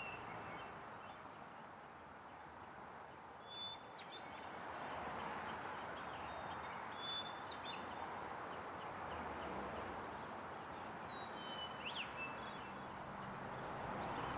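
Outdoor ambience: small birds chirping and whistling in short scattered calls over a steady background hiss.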